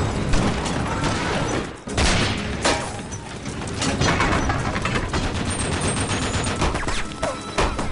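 Hand-cranked Gatling gun firing a rapid stream of shots amid other gunfire, with a sharp loud burst about two seconds in and a steady run of rapid shots from about four seconds on.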